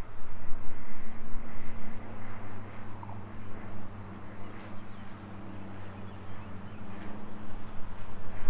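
Piston engine and propeller of a single-engine high-wing light aircraft, Cessna type, on approach: a steady droning hum that grows louder near the end as the plane comes closer.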